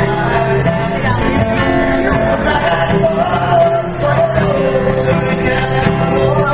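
Live music: a man singing over guitar accompaniment, with sustained, bending vocal notes.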